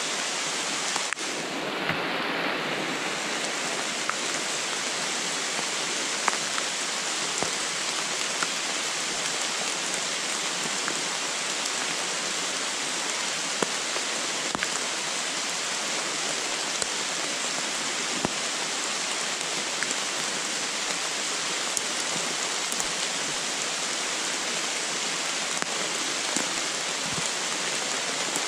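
Steady rain falling on the forest leaves and leaf litter, an even hiss with scattered single drops ticking louder now and then.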